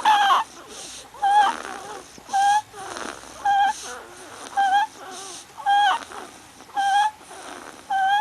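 A baby making a short, high squeak with each breath, about once a second, with a breathy wheeze between the squeaks.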